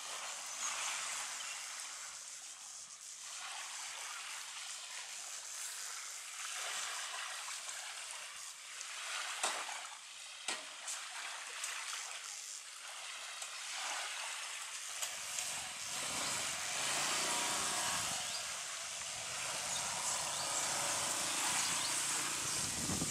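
Small waves lapping and washing on a sandy beach at the edge of a calm, shallow sea. There are a few sharp clicks near the middle, and from about two-thirds of the way through the sound grows louder, with more low sound underneath.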